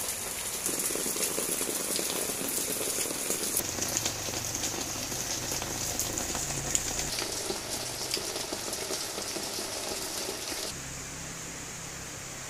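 Rain falling steadily, with many close drop impacts ticking through an even hiss. Near the end it eases to a quieter, smoother hiss.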